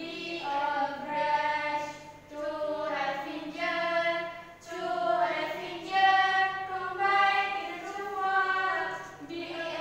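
A group of young women singing a simple song together in short phrases, with no instruments.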